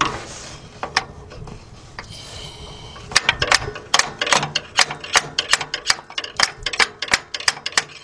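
A screwdriver tapping the metal housing of a failing starter motor: a few single knocks, then a quick run of about three to four sharp taps a second from about three seconds in. The tapping is meant to jar a starter that has stuck loose so it will crank the engine.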